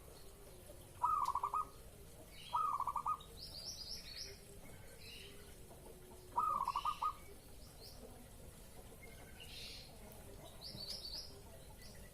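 Zebra dove (perkutut) cooing: three short phrases of quick repeated notes, about a second in, about two and a half seconds in and, after a longer pause, about six and a half seconds in. Other small birds chirp higher and fainter in between.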